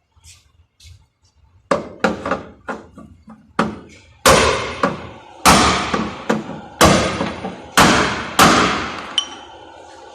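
Hammer blows on a car's sheet-metal body panel during panel straightening: a run of lighter knocks, then about five heavy strikes that ring on after each blow.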